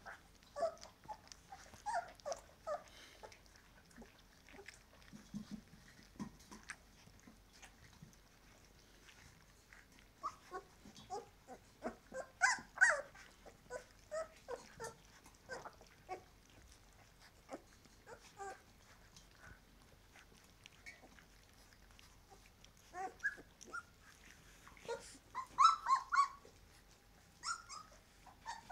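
A litter of weaning-age puppies eating wet food from a shallow metal bowl for the first time: short squeaks and whimpers scattered among small wet clicks of lapping. It is busiest about twelve seconds in and again near the end.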